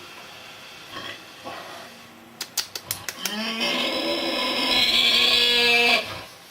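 Pig snoring: a few quiet breaths and a handful of quick clicks, then a long, loud snore with a steady pitch from about three seconds in that stops abruptly near the end.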